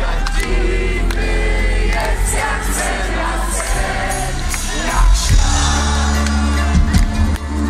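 Live band music heard from inside a festival crowd: a heavy bass line under the band, with many voices singing along. The music grows louder about five seconds in.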